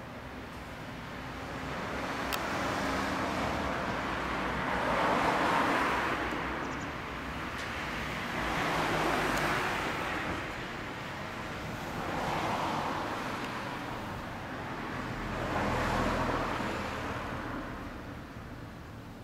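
Road traffic passing: four vehicles go by in turn, each a swell of tyre and engine noise that rises and fades away.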